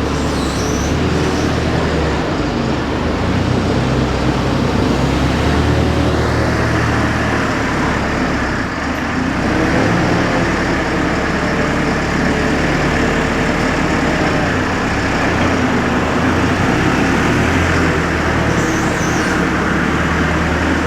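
Diesel engine of a farm telehandler running steadily while it drives, with a higher whine joining about a third of the way in.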